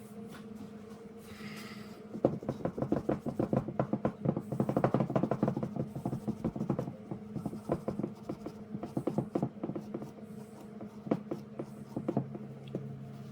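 Rapid scratching and scrubbing strokes on alternator parts for several seconds, followed by a few scattered clicks of parts being handled, over a steady low hum.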